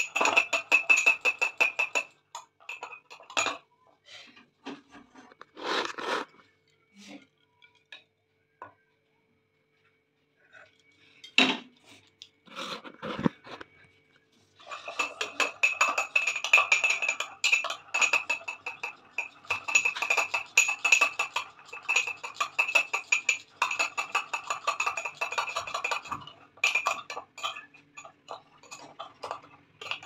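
A metal spoon beating a coffee mixture in a ceramic mug, clinking rapidly against the sides many times a second. The beating stops after about two seconds, leaving only scattered taps and a quiet spell, then resumes for about twelve seconds before easing into lighter taps near the end.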